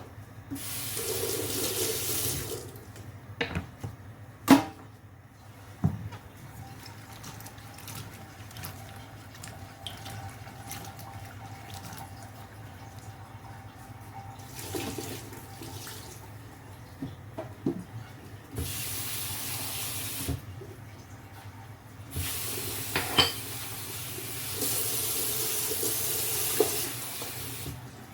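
Kitchen tap running into a sink in several spells of one to a few seconds each, the longest near the end. Scattered knocks and clatters come between the spells, the sharpest about four and a half seconds in.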